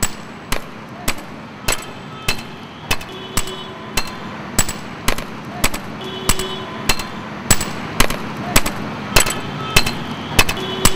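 Hand hammer breaking bricks, struck in a steady rhythm of about two blows a second, some blows with a short metallic ring.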